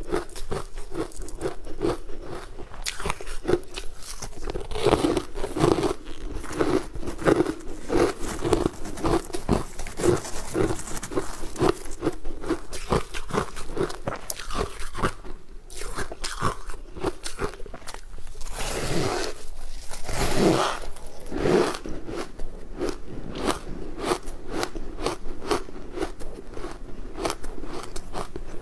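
Refrozen ice chunks coated in matcha powder being bitten and chewed close to a clip-on microphone: many crisp crunches in quick succession.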